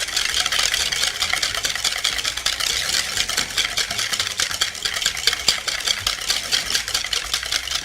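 Eggs and sugar being beaten fast in a bowl, with a quick, even clatter of many strokes a second against the bowl. The mixture is being beaten until it turns pale.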